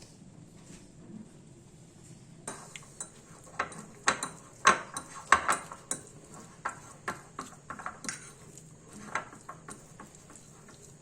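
Kitchen utensils clinking and scraping against a dish in an irregular run of light knocks. It starts about two and a half seconds in, is loudest around the middle and thins out near the end.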